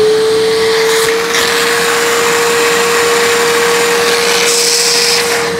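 Suction motor of a Bissell Little Green ProHeat portable spot cleaner running steadily with a constant whine, during a hose-cleaning run. A rush of air through the hose grows stronger about a second in and again near the end.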